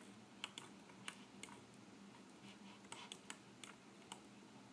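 About a dozen sharp, irregular computer keyboard and mouse clicks from work at a computer, over a faint steady low hum.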